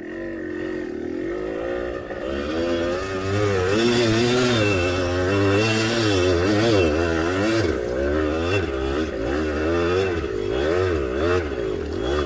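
Dirt bike engine running under throttle, its pitch rising and falling again and again as the throttle is worked, louder from about two seconds in.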